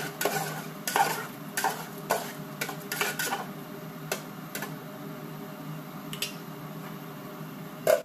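Wooden spatula stirring a curry in a metal cooking pot, knocking and scraping against the pot in a quick run of knocks over the first three seconds, then a few scattered clinks. A louder clank near the end as the metal lid goes onto the pot.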